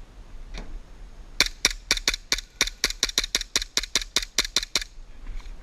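Airsoft gun firing a rapid string of about twenty shots, about six a second, for three and a half seconds, then stopping.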